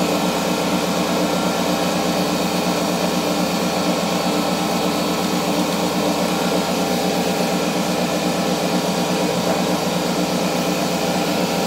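Air compressor running steadily: a loud, unbroken motor drone with a steady whine over it.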